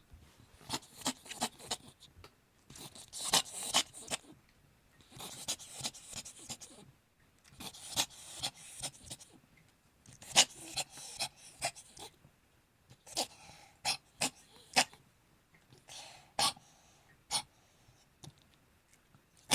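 A cat coughing in repeated fits, each a cluster of short, sharp hacking coughs, about seven fits with pauses between them.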